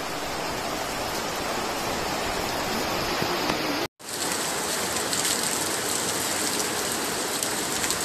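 Monsoon rain pouring steadily on trees. It drops out for a moment about four seconds in and comes back hissier.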